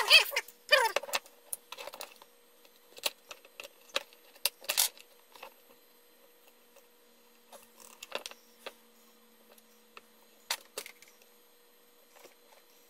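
Metal hand tools, pliers and locking pliers, clinking and clattering as they are picked up, set down and clamped on a workbench. The clatter comes in scattered bursts, busiest in the first few seconds with a sharp clack again around ten seconds in.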